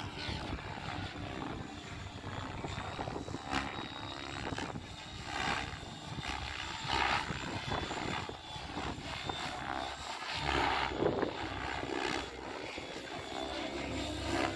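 Radio-controlled helicopter flying freestyle aerobatics, its rotor and motor sound rising and falling in several surges as it flips and tumbles.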